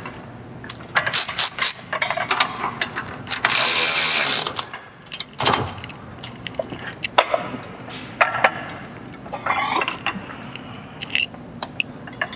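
Hand socket ratchet clicking in quick runs as nuts are run down on the mounting bolts of a rear shock absorber. A loud hissing burst cuts in for about a second and a half, about three and a half seconds in.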